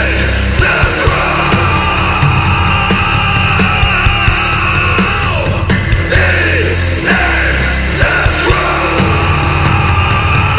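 Loud heavy metal song: heavily distorted electric guitars and bass chugging over pounding drums, with yelled vocals.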